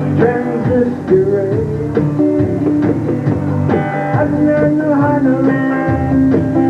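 A small live band playing: strummed acoustic guitar, bass guitar and conga drums keeping a steady beat.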